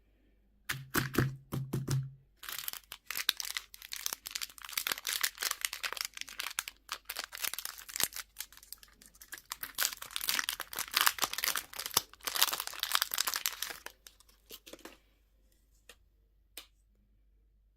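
A candy wrapper being crinkled and torn open by hand, a dense crackling rustle lasting about eleven seconds. It is preceded by a brief run of knocks with a low buzz about a second in, and followed by a few scattered clicks near the end.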